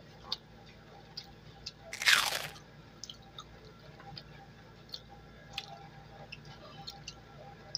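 Eating by hand: faint chewing and small clicks of mouth and fingers in rice, with one loud, short crunch about two seconds in.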